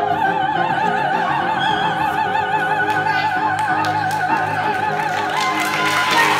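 Operatic soprano holding a long high note with a wide vibrato over sustained digital keyboard chords, stepping up to a higher held note near the end: the final note of the aria.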